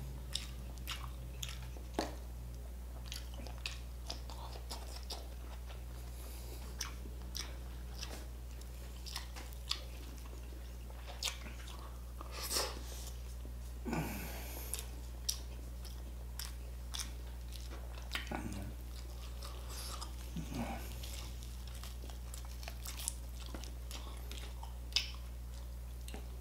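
A man chewing and biting a meal of lechon and rice close to the microphone: wet mouth sounds with irregular sharp crunches and clicks, over a steady low hum.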